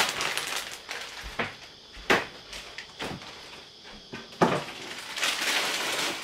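Rummaging in a low kitchen cabinet: scattered sharp knocks and clatter, the loudest about two seconds in and again about four and a half seconds in, with a short rustle a little later.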